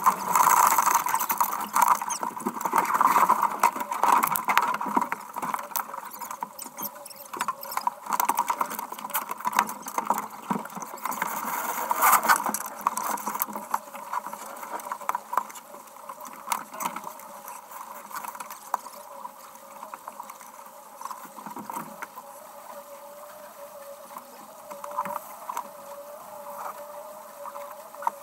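Wind buffeting the microphone of a camera on a racing sailboat, with water spray and rushing water. Loud gusty bursts ease after about 13 seconds, then a steady, slightly wavering hum and scattered clicks from the deck gear come through.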